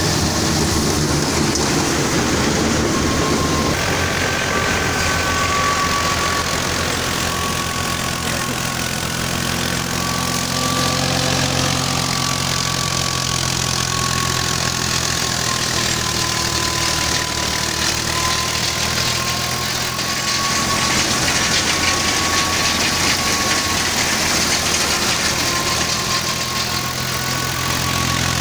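Tractor's diesel engine running steadily under load, driving a wheat thresher. A steady high whine from the thresher sits over the engine's drone.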